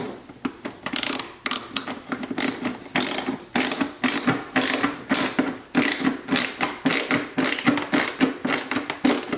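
Hand ratchet clicking in quick repeated bursts, a couple a second, as screws are driven in to tighten a carbon fiber diffuser to a car bumper.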